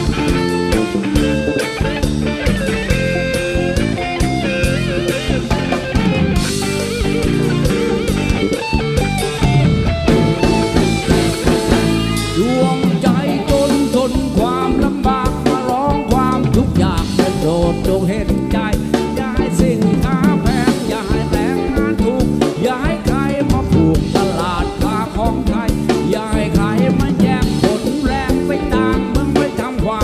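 Live rock band playing: electric guitar through a Marshall amp over drum kit and bass, with a male voice singing at times.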